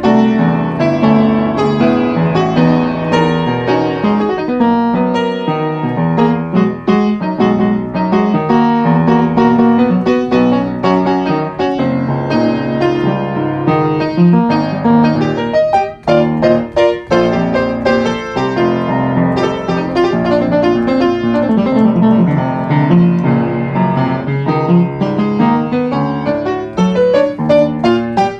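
Piano music, a quick run of notes and chords throughout, dipping briefly about sixteen seconds in.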